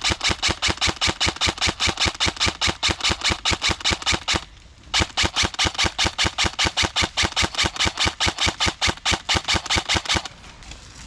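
Airsoft gun firing on full auto: a long stream of rapid, evenly spaced shots, a half-second pause about four seconds in, then a second long stream that stops about a second before the end.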